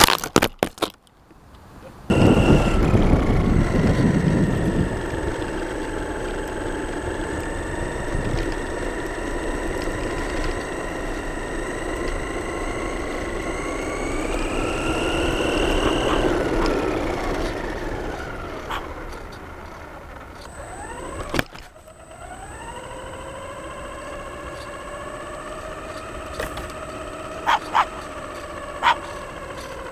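Radio-controlled model car's motor whining as it drives, its pitch rising and falling with speed. About two-thirds of the way through it dies away, then after a sharp click it climbs again, with a few short clicks near the end.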